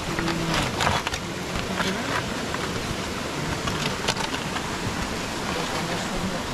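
Steady rushing of river water, with scattered sharp crackles and snaps over it, a cluster about a second in and single ones near two and four seconds in.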